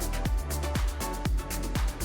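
Electronic dance background music with a steady kick-drum beat, about two beats a second, and ticking hi-hats.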